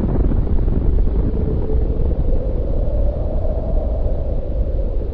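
Deep, steady rumble of a nuclear explosion's aftermath, with no sharp blast in it.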